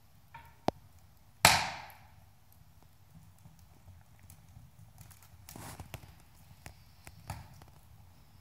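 Wood fire burning in a Quadra-Fire 2100 wood stove, crackling with scattered pops. One loud sharp crack comes about a second and a half in.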